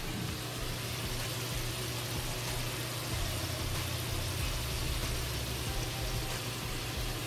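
Potato chunks deep-frying in a wok of hot oil: a steady sizzling and bubbling, with a low steady hum underneath.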